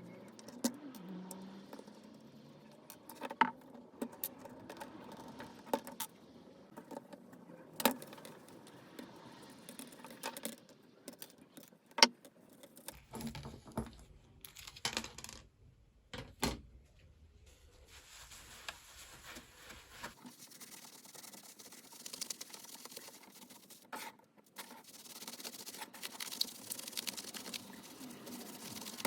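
Small metal guitar hardware being handled, giving irregular clinks and sharp clicks with a light jangle.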